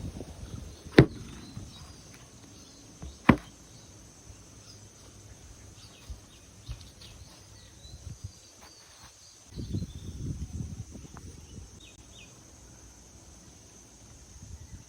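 A knife cutting into packed coloured sand. There are two sharp knocks, about one second and about three seconds in, and a low crumbling scrape about ten seconds in, with faint high chirping behind.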